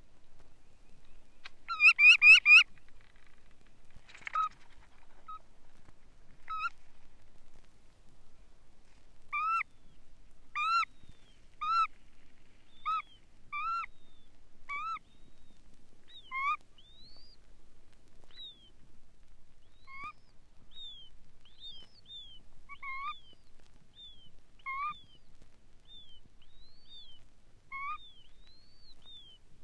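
Red knot calling: a loud quick burst of notes about two seconds in, then a run of short clipped calls about once a second, with thin higher whistled notes joining in the second half.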